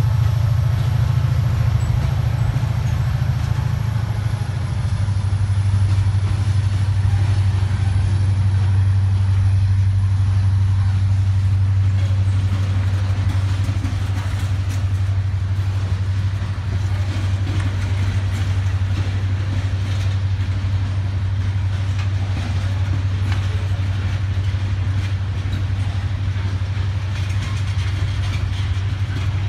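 Freight train passing: its EMD diesel locomotives go by with a steady low engine drone and a pitched whine that fades out a few seconds in. Hopper and tank cars then roll past with scattered wheel clicks over the rail joints.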